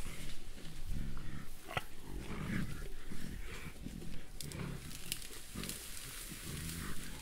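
Mountain gorilla grunting: a run of short, low grunts, about two a second.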